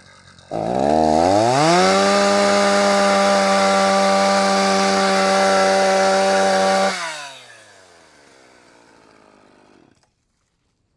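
Poulan 330Pro two-stroke chainsaw revved up to full throttle and held at a steady high pitch for about five seconds, then released so the engine note falls away and fades out near the end. The chain is mounted backwards, so the saw runs against the log without cutting.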